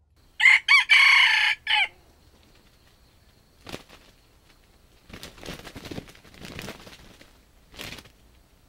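Red junglefowl rooster crowing once, a short crow broken into three parts that ends abruptly. It is followed by a few quieter rustling noises.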